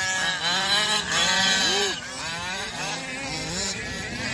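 Small two-stroke gas engine of a 1/5-scale RC off-road car running, its pitch rising and falling over and over as the throttle is worked. It gets quieter from about halfway.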